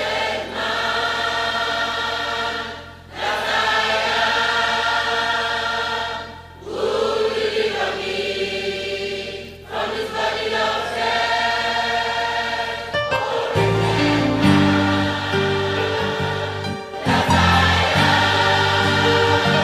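Gospel choir singing in long held phrases, with short breaks between them; a bass line joins in about two-thirds of the way through.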